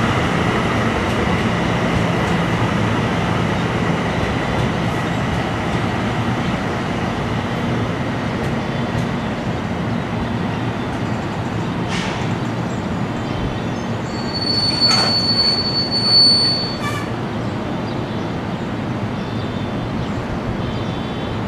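NJ Transit bi-level commuter train pulling out of the station, its cars giving a steady rumble over the rails. A high wheel squeal sounds for about two seconds roughly two-thirds of the way through.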